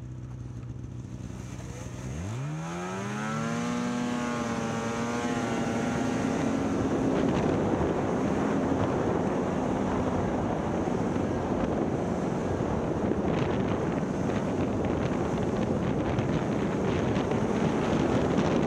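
Snowmobile engine idling with a steady hum, then revving up with a sharp rise in pitch about two seconds in as the sled pulls away. It then runs steadily at speed, with track and wind noise rushing over it.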